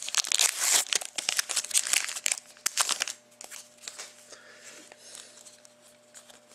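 Trading card pack wrapper being torn open and crinkled, dense and crackly for about three seconds, then quieter rustling as the cards are handled.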